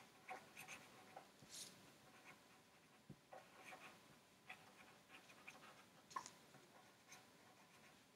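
Near silence: quiet room tone with faint, scattered small clicks and rustles.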